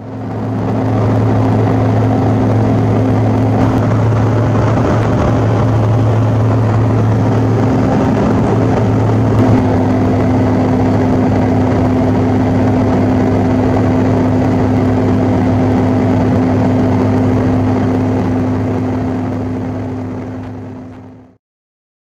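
Cabin noise of a Bombardier CRJ-200 in flight: a steady rush of air with a constant hum from its two rear-mounted General Electric CF34 turbofan engines. It fades in at the start and fades out about a second before the end.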